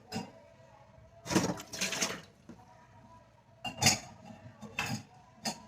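Cups and dishes being set into a dishwasher rack: a series of clinks and knocks. The loudest comes about four seconds in.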